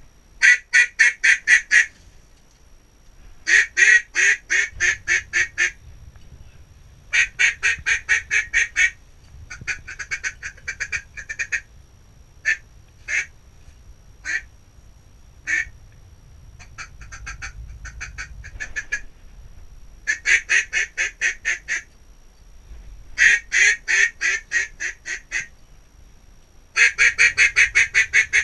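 Duck call blown in quacking sequences. There are runs of rapid, evenly spaced quacks, about six a second, with short pauses between them, and a few spaced single quacks near the middle.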